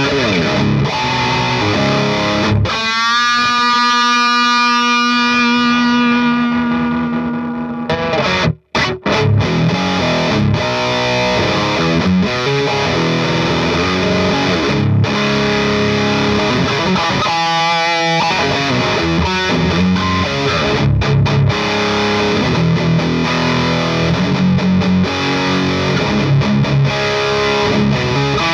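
Heavily distorted electric guitar played through the GupTech Evil Donkey high-gain pedal into an Orange Pedal Baby power amp. A riff opens, then a chord rings out for about five seconds and fades. The sound stops dead for a moment before fast distorted riffing resumes, with another briefly held chord about two-thirds of the way through.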